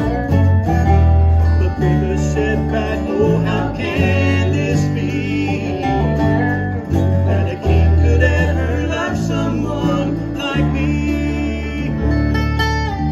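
Bluegrass gospel band playing acoustic guitars, a resonator guitar and electric bass, with a pulsing bass line under the plucked strings.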